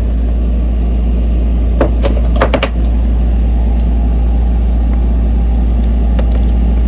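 Steady low hum, with a few short clicks about two seconds in from the plastic tablet mount being trimmed.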